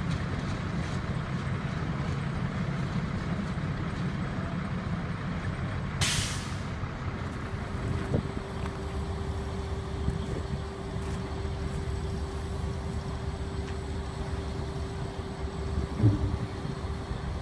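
Diesel locomotive engine idling with a steady low rumble. About six seconds in, a short hiss of compressed air from the air brakes, and just after it a steady hum sets in and holds.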